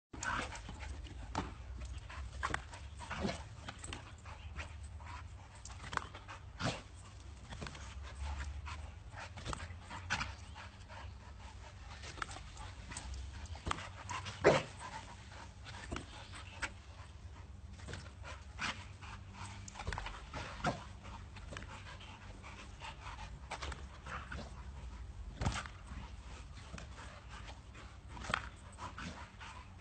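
A dog panting, with irregular short clicks and knocks throughout and one sharper, louder knock about halfway through, over a steady low hum.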